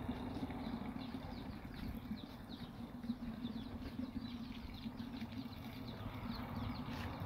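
Many small birds chirping, with quick short calls scattered throughout, over a steady low outdoor background hum.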